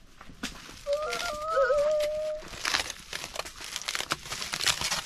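Aluminium foil crinkling as a foil-wrapped packet is unwrapped by hand: a run of quick crackles through the second half. About a second in, a short hummed note from a voice.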